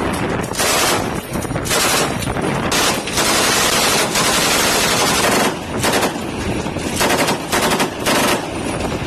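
Twin-mounted M240 7.62 mm machine guns firing in several short bursts, with one longer burst of about two and a half seconds in the middle.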